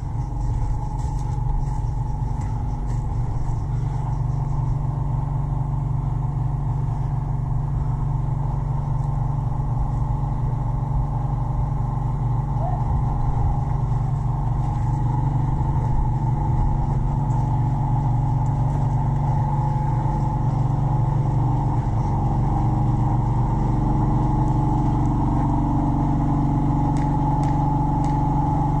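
Steady, unchanging mechanical hum with a low drone and a higher droning tone above it.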